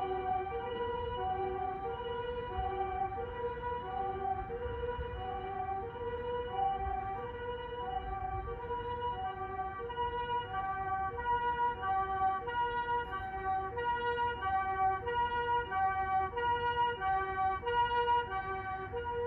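Japanese ambulance's comfort siren sounding its two-tone call, alternating a higher and a lower note about every two-thirds of a second, with a low road rumble underneath. It grows louder in the last few seconds.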